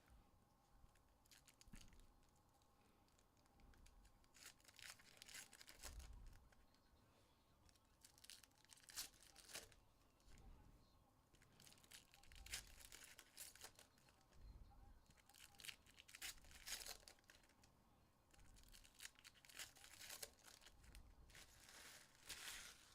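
Faint tearing and crinkling of trading-card pack wrappers being ripped open, in short bursts every few seconds.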